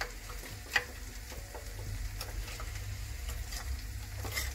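Steel spoon stirring a runny spice-and-water paste in a small steel bowl, with light scattered clicks of the spoon against the bowl, one sharper about a second in.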